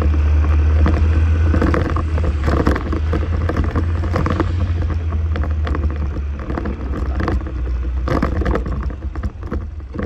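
Motorcycle on the move in traffic: a heavy, continuous low rumble of wind, engine and road noise, with many short knocks and rustles. It dips briefly near the end.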